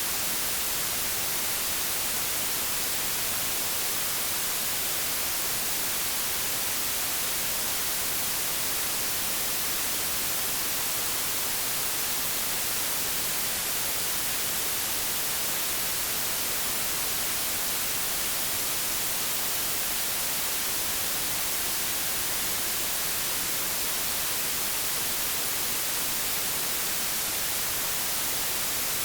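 Continuous generated white noise: a steady, even hiss that never changes.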